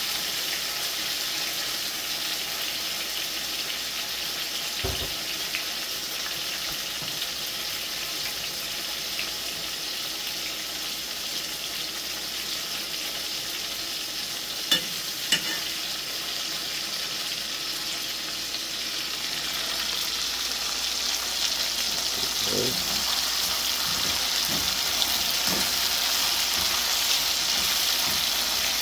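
Chicken back pieces frying in hot oil in a pot: a steady sizzle that grows louder in the second half. Two sharp clicks come about halfway through, and a few soft knocks follow later.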